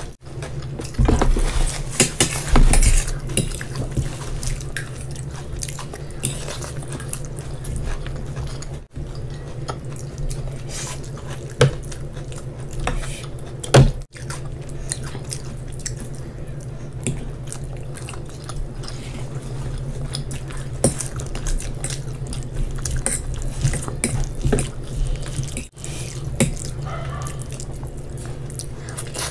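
Close-up eating sounds: a hand squishing fried rice into saucy paneer manchurian and a fork clicking and tapping on a plate, over a steady low hum. The sound drops out briefly a few times.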